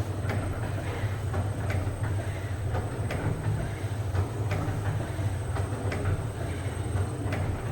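XZ-15C bakpia encrusting and stamping machine running, a steady low motor hum with regular clacks about twice a second from its repeating stroke.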